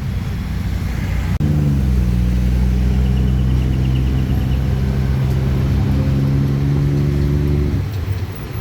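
Street traffic. From about a second and a half in, a motor vehicle's engine runs close by at a steady, low pitch, then drops away near the end.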